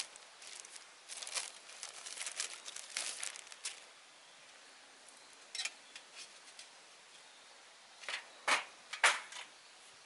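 Thin plastic bag crinkling and rustling in a dense run of crackles as a stainless-steel fire-stand plate is slid out of it, then a few scattered ticks. Near the end come two or three sharper, louder crinkles or taps, the loudest sounds here.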